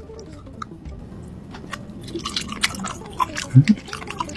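King crab leg shell being snapped and broken apart by hand, with irregular sharp cracks and crackles, mixed with wet chewing and mouth sounds.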